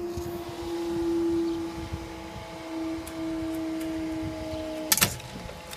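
Level crossing warning alarm sounding one steady tone, which stops about five seconds in at a sharp clunk.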